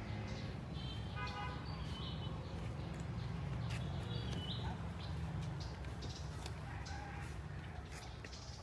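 A rooster's crow sounds briefly about a second in, with small birds chirping here and there over a steady low rumble.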